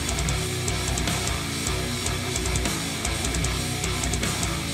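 Modern metal track with electric guitar and drums, played back through a pair of KRK Rokit 5 G4 studio monitors and picked up by a recorder in the room.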